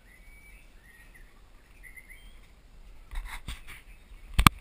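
A bird calling with short repeated chirps, then a few rustling knocks and two sharp, loud clicks near the end, after which the sound cuts off.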